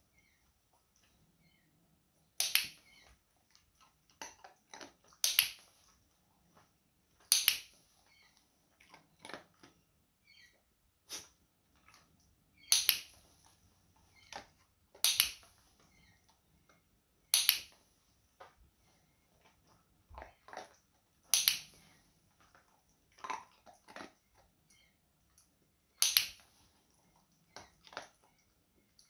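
Dog-training clicker snapping sharply about every two to three seconds, each click marking the dog's head turn in a shaping session. Between clicks there is fainter crunching as the dog eats its treats.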